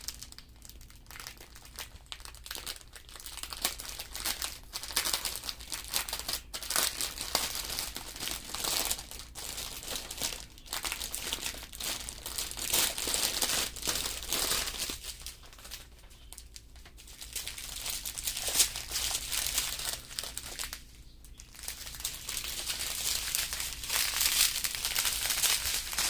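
Thin plastic bags of diamond-painting resin drills crinkling as they are handled and sorted, an irregular crackle with a few short lulls.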